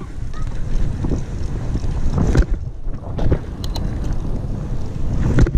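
Wind buffeting the microphone of a camera on a mountain bike rolling along a paved road, a heavy steady rumble. Scattered knocks and rattles from the bike come through, the loudest about two and a half seconds in and again near the end.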